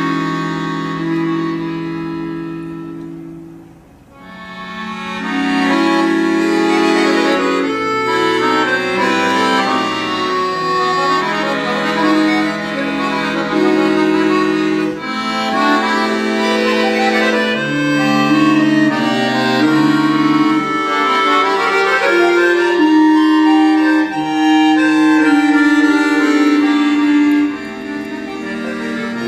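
Solo chromatic free-bass accordion playing sustained chords under a moving melody. About three to four seconds in the sound thins to a brief hush at the end of a phrase, then the next phrase swells back in.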